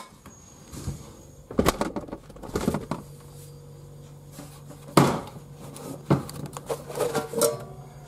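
Knocks and clatter from things being handled at an open refrigerator, with sharp knocks about a second and a half in, at about five seconds and at about six seconds. A low steady hum starts about three seconds in.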